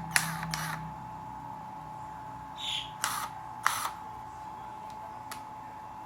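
A handful of short, separate clicks and knocks from handling a cordless impact wrench, with a low hum that stops about a second in.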